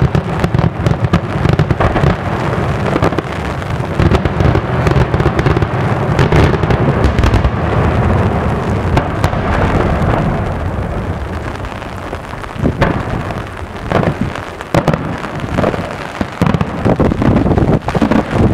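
Daytime aerial fireworks: a rapid, dense barrage of shell bursts and bangs that thins after about twelve seconds into separate loud cracks.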